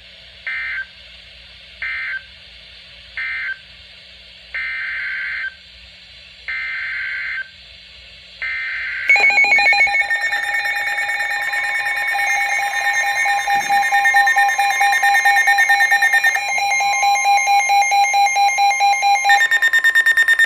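Emergency Alert System signalling: three short bursts of warbling digital data (the end-of-message code), then three longer bursts of SAME header data. About nine seconds in, the loud, steady EAS attention tone begins and holds, announcing a new warning.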